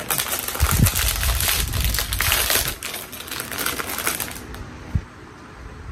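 Plastic chip bag being pulled open and crinkled in the hands, a dense crackling that eases off about four and a half seconds in.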